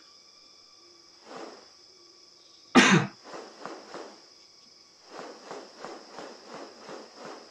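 Magnificent riflebird's wings in display: one loud atonal swish about three seconds in, then shorter rustles repeating about three times a second. The presenter guesses this is frictional noise made by the wings.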